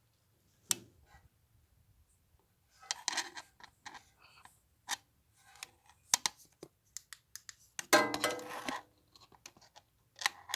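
Parts of a disassembled small engine being handled by hand: scattered metal clicks and short scrapes, with a louder clattering rattle about eight seconds in.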